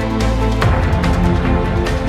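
Background music with a steady beat and held synth chords, changing chord about two-thirds of a second in.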